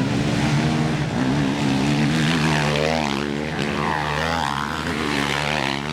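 ATV engines running, one holding a steady note while another revs up and down through the middle.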